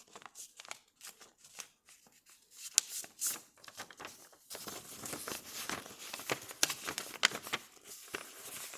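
A sheet of paper being folded and creased by hand: crinkling and rustling with scattered sharp crackles, getting busier about halfway through.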